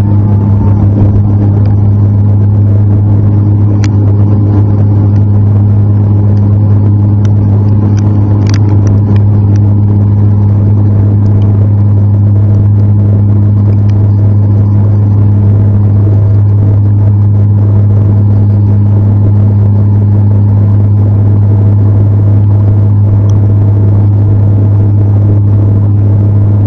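Turboprop airliner's engines and propellers running at climb power just after takeoff, heard inside the cabin as a loud, steady low drone with an even hum.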